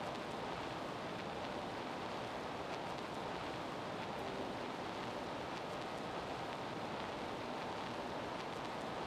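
Steady hiss of gymnasium background noise: a low, blended crowd murmur and room noise, with a few faint ticks.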